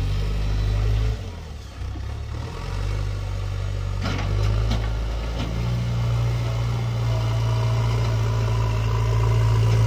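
Diesel engine of a JCB 3DX backhoe loader running. It eases off about a second in, then picks up again and holds louder from about halfway through as the machine backs away and drives. A few clanks come around four to five seconds in.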